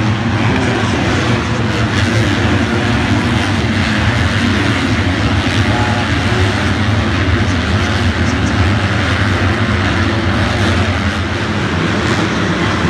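A pack of motocross bikes racing, their many engines blending into one loud, continuous drone.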